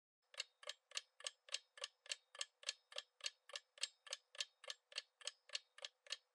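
Clock-tick countdown sound effect: even, sharp ticks about three and a half a second, starting shortly after the question is asked, marking the time left to answer.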